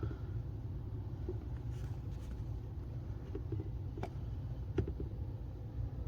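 Steady low hum with a few light clicks and taps, as plastic humidifier parts are handled and looked over.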